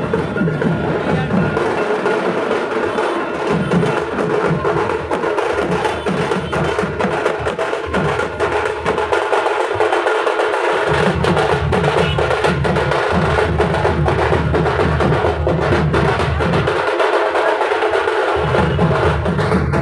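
Procession drummers beating double-headed barrel drums in a fast, dense rhythm of sharp, clacking strokes over a deeper beat, which drops out briefly twice.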